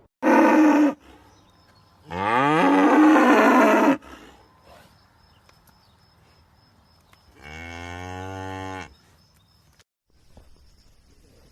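A cow mooing three times: a short loud moo, then a longer moo that rises in pitch and holds, then a quieter, lower moo near the end.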